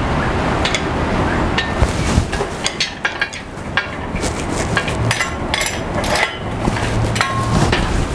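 Metal tools and parts knocking and clinking against a metal compressor frame during hands-on work: a run of sharp knocks and metallic clinks, with a few ringing clanks past the middle, over a steady low hum.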